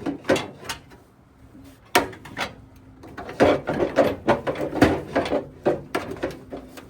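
Hand work on a truck's front end: irregular knocks, clanks and scrapes as body parts and bolts are handled. There is one sharp knock about two seconds in, then a dense run of rattling knocks.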